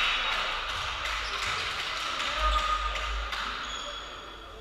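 Shouts and cheering from players and spectators echoing in a sports hall, dying away over about four seconds.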